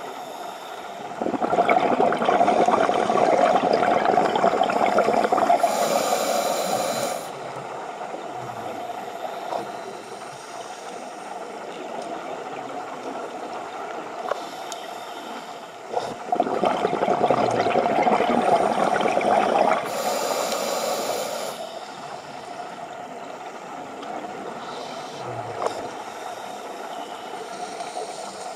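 Scuba breathing through a regulator underwater, heard as two long rushing, bubbling breaths. One starts about a second in and the other about sixteen seconds in, each lasting some five seconds, with quieter noise between.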